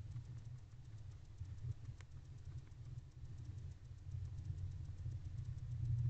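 Steady low hum, with a single sharp click about two seconds in and a few fainter scratches from a barn owl preening and shifting inside a wooden nest box.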